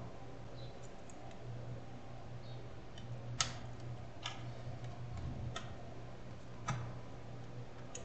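A handful of faint, sharp clicks about a second apart from a tool working at a laptop's plastic casing around a seized screw, over a low steady hum.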